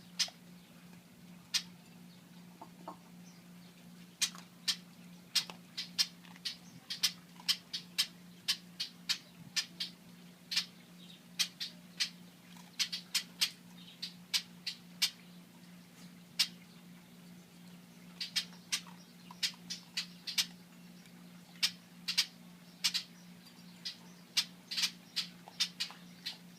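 Blackbirds mobbing a dog, giving short, sharp alarm calls over and over at irregular intervals, often one to three a second with brief lulls. A steady low hum runs underneath.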